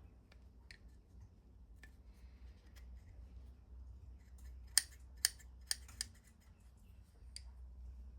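Small metal parts of a watchmaker's jewel press clicking as they are handled. There are a few faint ticks, then four sharp clicks about five to six seconds in, and one more near the end.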